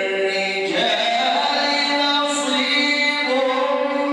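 A man reciting the Quran in the melodic chanted style, holding long notes that step from one pitch to another.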